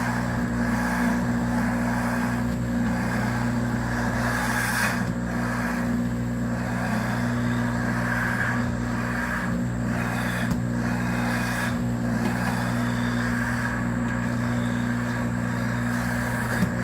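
Pampered Chef Deluxe Cooking Blender's motor running steadily on its grind cycle, blades churning a jar of whole roasted peanuts into peanut butter.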